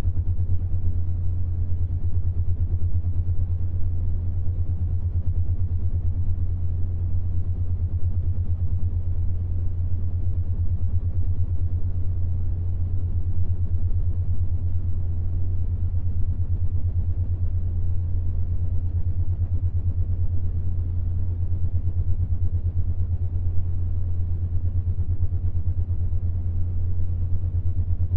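Steady low binaural-beat hum: a pure tone near 100 Hz pulsing in a fast, even throb, made to produce the 7.83 Hz Schumann-resonance beat.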